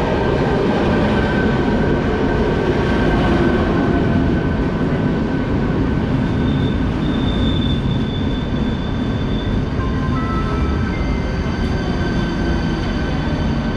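A train moving through a station with a steady, loud rumble, and thin high-pitched squealing tones from the wheels and running gear joining in about halfway through.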